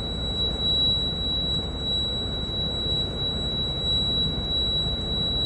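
City bus's low-air-pressure warning buzzer sounding one continuous high-pitched tone while the air system is still filling, over the low rumble of the idling diesel engine.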